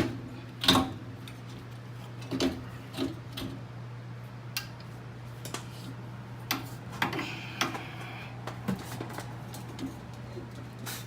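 Irregular metallic clinks and knocks of hand tools and front-suspension parts being handled, a dozen or so sharp single strikes with short gaps, over a steady low hum.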